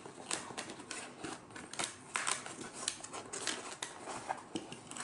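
Utility knife cutting and scraping into a stiff bead-foam case insert: a quick, irregular string of crisp scratches and clicks.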